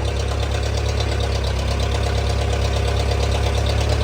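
Engine of a 1959 Case loader backhoe running steadily at idle, with an even, rapid pulse.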